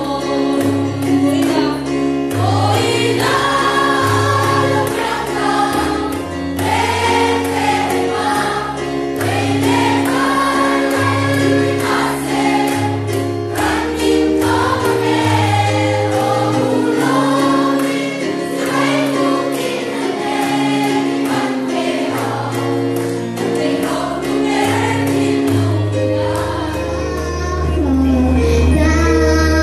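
A choir of children and adults singing together over amplified accompaniment, with a bass line that changes note every second or so and a steady beat.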